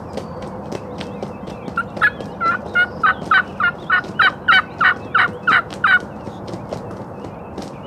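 A series of about a dozen turkey yelps, roughly three a second, starting about two seconds in, growing louder and stopping about six seconds in.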